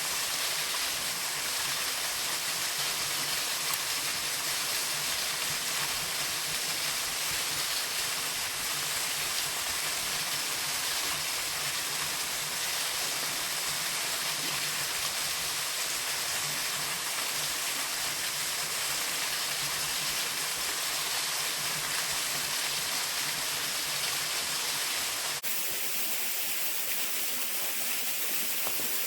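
Waterfall rushing, a steady even hiss of falling water. About 25 seconds in, the sound changes abruptly and loses its low rumble.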